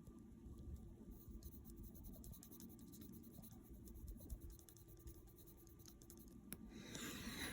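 Faint scratching of a pencil on a paper checklist: quick, light strokes as small tick boxes are filled in.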